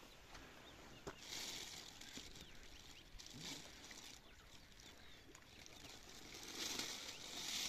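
A plastic bag rustling and crinkling as it is handled, in a few short spells with the loudest near the end, and one small click about a second in.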